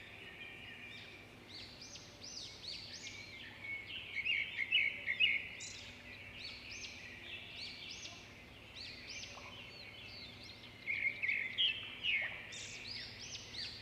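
Small birds chirping, many short, quick, arching notes overlapping one another. The chirping grows louder about four to five seconds in and again around eleven to twelve seconds.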